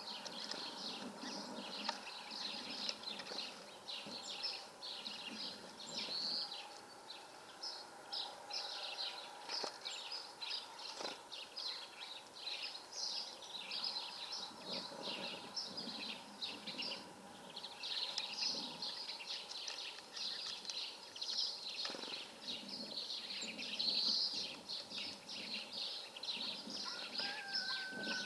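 Many small birds chirping and twittering continuously, a dense chatter of short, high calls.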